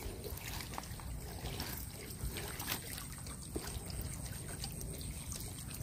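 Water trickling and dripping off a wet fishing net as it is hauled hand over hand out of the water into a wooden canoe, with small splashes and light ticks.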